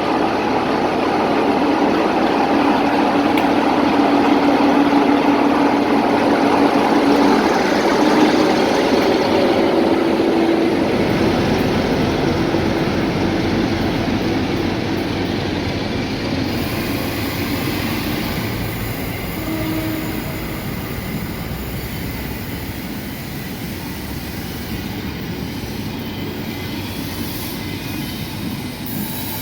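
A train running past on the line: a steady rumble of wheels and engine, loudest about eight seconds in and then slowly fading as it draws away.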